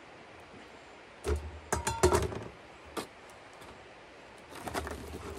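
Knocks and clinks of camp cooking gear being handled, a short cluster of them about a second in with one ringing briefly, then a single click and some softer clatter and rustling near the end.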